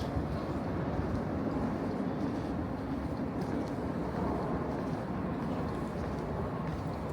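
Steady low rumble of a train running close by.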